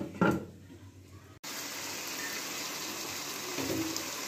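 A glass pot lid set down on a cooking pot with a brief clatter. After a cut about a second and a half in, a steady hiss of chicken and tomato gravy simmering in the open pot.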